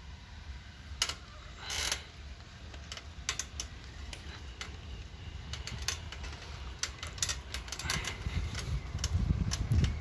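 Bicycle being ridden on a paved road: scattered sharp clicks and rattles from the bike over a low rumble of wind and road noise, which grows louder near the end.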